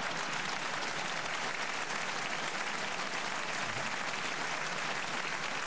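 Studio audience applauding steadily after a punchline in a late-night comedy list.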